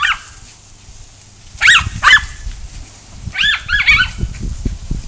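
A small Yorkie-Chihuahua mix dog yapping in short, sharp barks as she chases the spray from a garden hose. There is one bark at the start, two loud ones close together a little under two seconds in, and a quick run of about four around three and a half seconds in.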